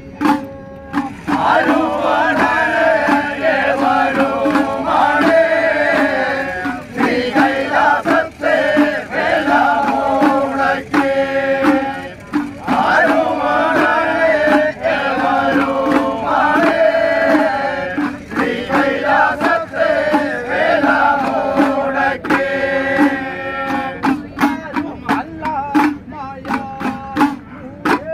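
A group of men chanting an Ayyappa devotional song together, accompanied by small hand drums struck in a steady rhythm. The singing starts about a second and a half in, breaks briefly near the middle, and near the end the drums carry on with little singing.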